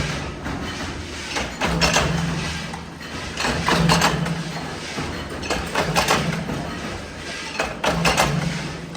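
Factory machine running, with a metallic clank about every two seconds over a steady low hum.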